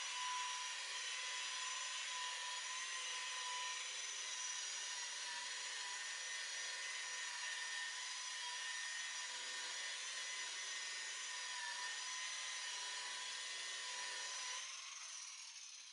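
Electric rotary buffer running steadily with a constant whine, buffing oxidation out of a boat's gelcoat hull, then switched off near the end and spinning down.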